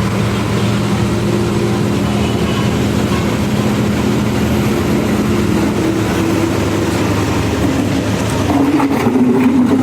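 CASE backhoe loader's diesel engine running steadily; near the end it gets a little louder and its pitch rises slightly.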